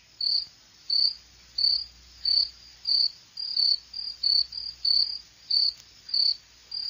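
Cricket-chirping sound effect edited in over the pause: a high, regular chirp about every two-thirds of a second, the stock gag for an awkward silence.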